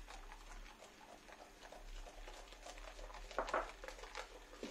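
A flat utensil stirring and scraping a wet flour-and-water dough mix against a glazed ceramic bowl: quick, irregular clicks and scrapes, loudest about three and a half seconds in.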